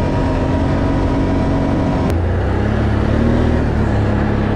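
ATV engine running at a steady speed while the quad is ridden along a dirt track. About two seconds in there is a short click, and after it the engine note is lower.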